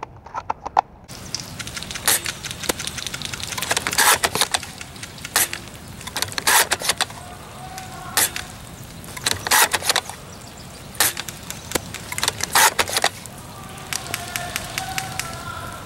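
Steady hiss of rain with bursts of crackling and rustling every second or two, a few of them sharp and loud.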